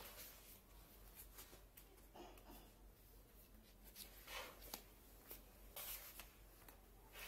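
Faint rustling and swishing of stiff wallpaper sample pages being turned by hand in a sample book, several page turns in a row.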